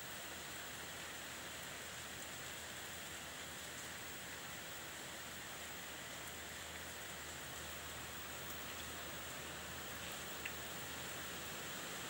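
Steady rain falling, an even hiss, with one faint tick near the end.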